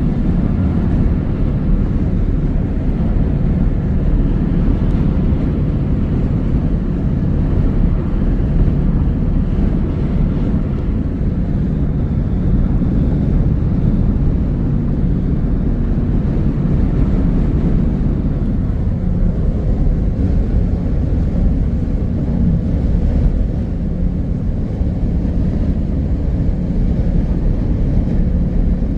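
Steady low rumble of a car driving along the road: tyre and engine noise, even throughout, with no thunder claps standing out.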